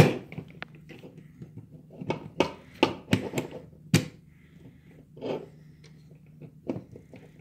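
Plastic clicks and knocks from a Transformers Siege Optimus Prime action figure being handled as its parts are pressed and snapped into place. A louder thump comes right at the start, and a cluster of sharp clicks follows between about two and four seconds in.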